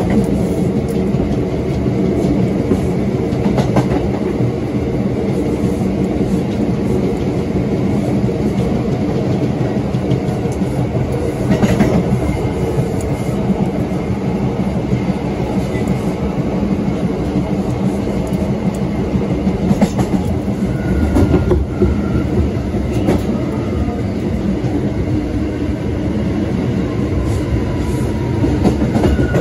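Bombardier R179 subway car running steadily along the track: a loud, even rumble of wheels on rail, with sharp clacks over rail joints every several seconds. A faint whine from the MITRAC AC traction motors rides on top.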